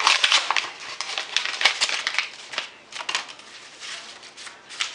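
Packaging being handled as a shipping package is opened: crinkling, rustling and quick clicks, dense for the first three seconds and then a few separate rustles.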